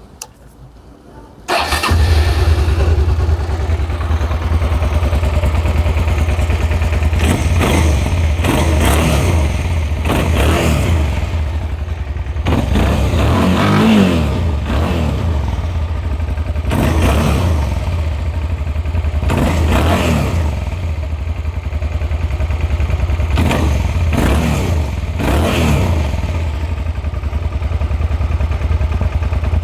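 Suzuki SV650S's 645 cc 90-degree V-twin starting about a second and a half in, then idling with the throttle blipped repeatedly, the revs rising and falling again each time.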